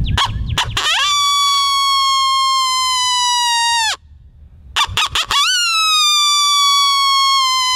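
Primos Lil Dog open-reed coyote howler blown as an invitation howl in the voice of a young coyote. A few quick barks lead into a long, steady howl that falls off sharply at its end. A second set of barks follows, then a second long howl that starts a little higher and slowly sinks.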